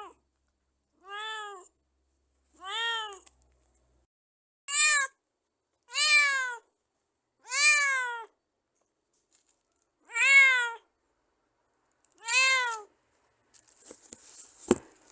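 Domestic cat meowing: about eight separate meows, each rising then falling in pitch, with dead silence between them. Near the end a brief scuffling noise with a sharp click.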